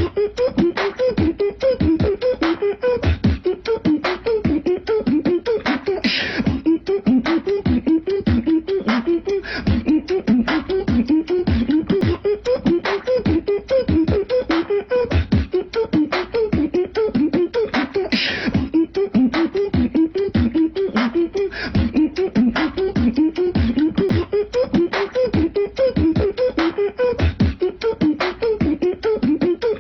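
Beatbox loop: a police-whistle imitation of quick rising and falling pitch swoops over bass drum, snare and hi-hat sounds. The pattern repeats about every twelve seconds, each time marked by a longer hiss.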